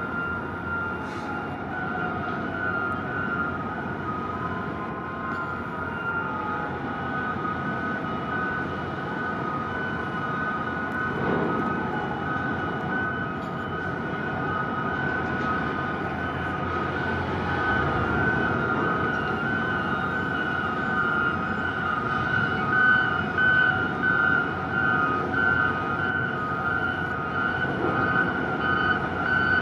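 Straddle carriers moving containers: steady high warning tones from the carriers' alarms, turning into a pulsing beep in the second half, over the running noise of their engines and drives. A few slow whines rise and fall underneath.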